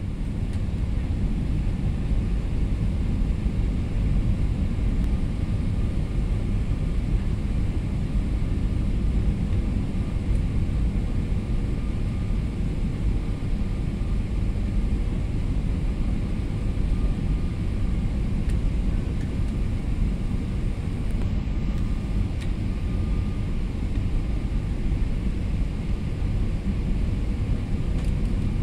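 Steady low rumble of an airliner's passenger cabin in flight on approach to landing: engine and airflow noise.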